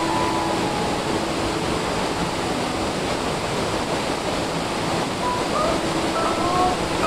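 Steady rush of a small waterfall pouring into a pool.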